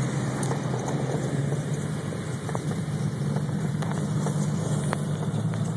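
Cessna 310's twin piston engines throttled back during the landing rollout, a steady drone heard inside the cabin.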